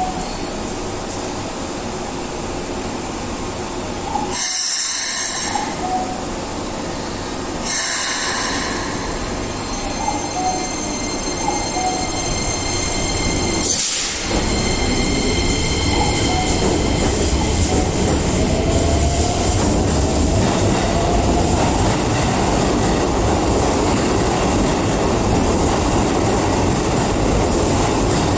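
Commuter train in an underground station: two short hisses about four and eight seconds in. From about halfway the train moves along the platform, its wheel and motor rumble growing louder, with a rising motor whine as it picks up speed.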